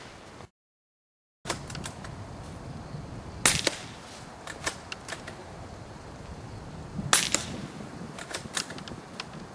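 Two suppressed shots from a Mossberg 44US bolt-action .22 rifle fitted with a Tactical Innovations Tac-65 suppressor, about three and a half seconds apart. Each shot is a sharp crack followed by a few lighter clicks of the bolt being worked. The sound drops out for about a second near the start.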